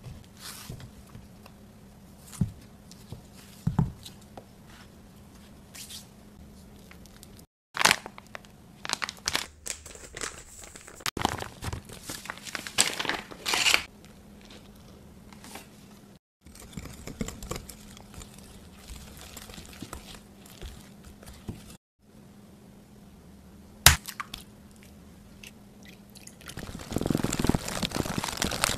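Kitchen prep sounds: scattered knife taps on a wooden cutting board as ripe bananas are cut, a busy stretch of rustling, crackly handling noise, then near the end a wire whisk beating pancake batter fast against a glass bowl.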